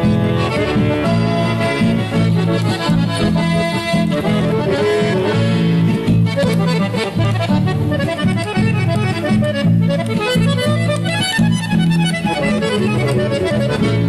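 Instrumental folk music: an accordion playing a fast melody over guitar accompaniment.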